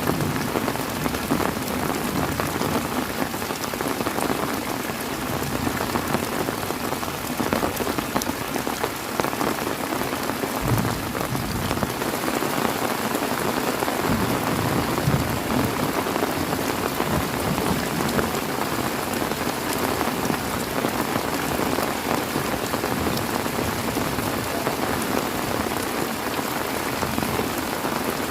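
Heavy rain falling steadily, a dense hiss of drops pattering on surfaces.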